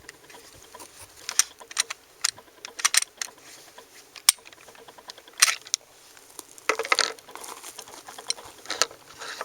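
Irregular metallic clicks and clacks of a Glock 20 pistol being handled and taken apart, the lower half separated to be fitted into a carbine conversion; the sharpest clacks come about five and a half and seven seconds in.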